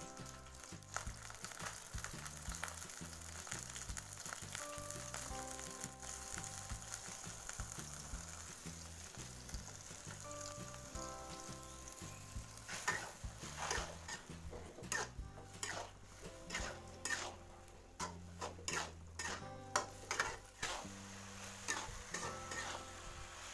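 Mussels and tofu sizzling in a wok, with a steady hiss. From about halfway through, a metal spatula scrapes and knocks against the pan in quick strokes as the mix is stirred. Soft background music plays throughout.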